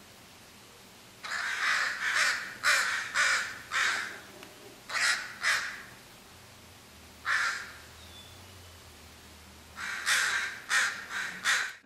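Crow cawing in short, harsh calls that come in bouts of two to five with pauses between them. This is a crow mobbing a perched bald eagle.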